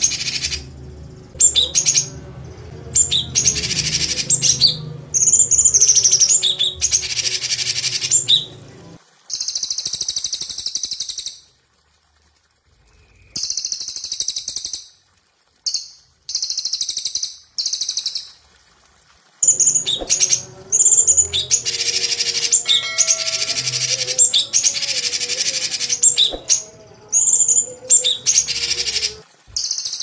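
Crested jay (cililin) and leafbird (cucak cungkok) singing in loud bursts of rapid, high-pitched trills and chatter, each a second to several seconds long, with a few short pauses.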